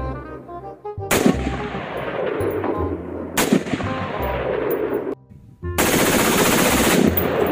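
AR-15/M4-style rifle firing rapidly: a sharp crack about a second in opens dense continuous fire, which breaks off briefly near the five-second mark and then resumes louder.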